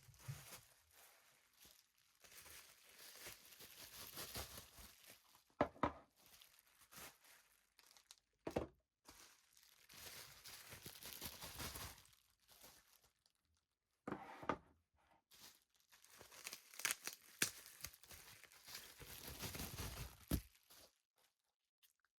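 Packaging being torn open and crinkled by hand in several spells a few seconds long, with short pauses and a few sharp clicks in between.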